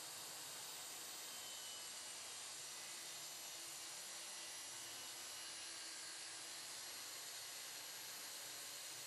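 DEWALT plunge-cut track saw running and cutting plywood along its guide rail, with its dust extraction hose attached; heard as a steady, faint high hiss.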